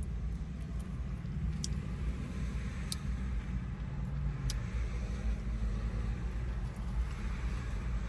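Close-up mouth sounds of a man chewing a burrito, with a few sharp wet clicks, over a steady low rumble inside a car.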